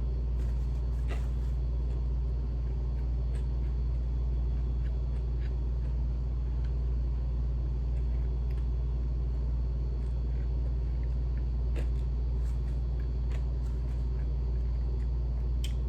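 A steady low rumbling hum, with faint scattered crunching clicks of someone chewing crispy fried chicken feet and gizzards.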